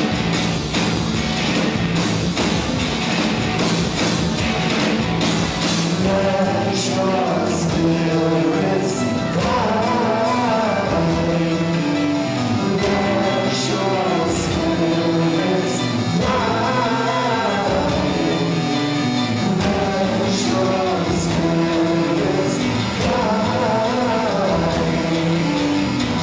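Live band playing a song with a sung lead vocal and cymbal strokes throughout.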